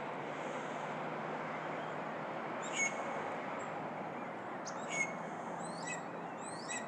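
A few short, sharp bird calls, one at a time about three, five, six and near seven seconds in, over a steady background hiss.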